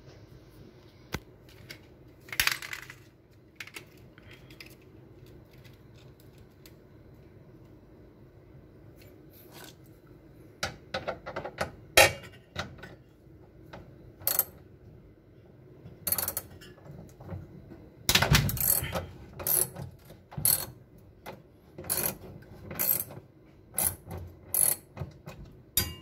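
Wrench clicking and clinking on the washing machine motor's mounting bolts as they are loosened for a belt adjustment. There is one cluster of clicks early, then sharp irregular metallic clicks come thick and fast from about ten seconds in.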